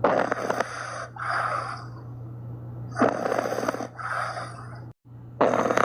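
Sleeping puppies snoring: five raspy snore breaths, each about half a second to a second long, with short pauses between them.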